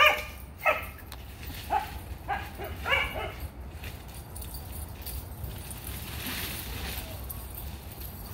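A dog barking while the dogs chase each other in play: about five short, high-pitched barks in the first three seconds, then no more barking.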